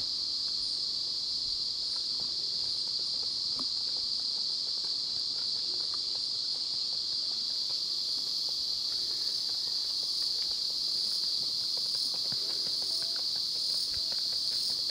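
Steady, shrill chorus of insects such as crickets or cicadas. Partway through, a second, higher insect call joins, pulsing about twice a second. Faint, irregular light ticks run underneath.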